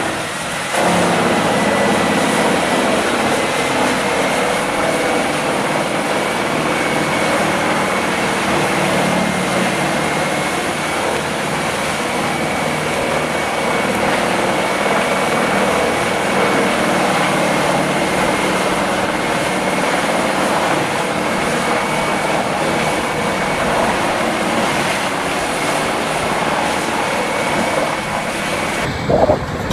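A heavy machine's engine running steadily at high speed, with a faint high whine held at one pitch throughout.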